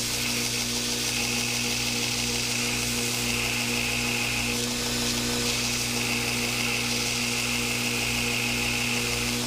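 2x72 belt grinder running with a steady motor hum while a steel knife blank is ground against the belt; the grinding hiss swells and eases several times as the blade is pressed on and eased off, profiling the blank's contours.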